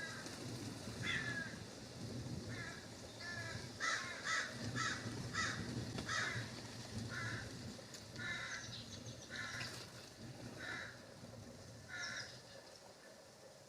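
A jay giving a run of short, harsh calls, about fifteen in all, coming fastest near the middle and spacing out toward the end.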